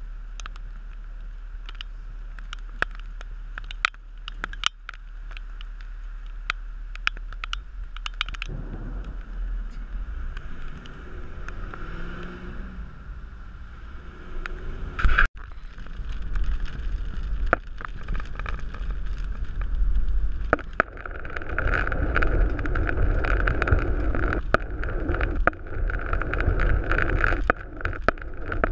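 Car engine idling at a standstill with scattered ticks of raindrops on the camera. Then the car pulls away, its engine note rising, and builds to a steady loud rush of tyres and spray on the wet road. There is one sharp knock about halfway through.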